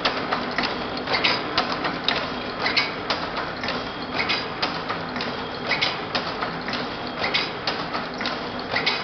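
Packaging machine with a rotary turret feeder running: a steady mechanical clatter of clicks and clacks, with a sharper cluster of clacks repeating about every second and a half.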